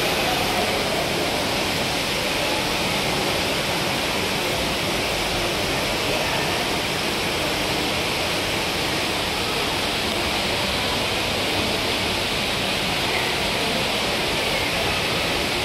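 Indoor fountain's water jets splashing: a steady rushing hiss that stays even throughout.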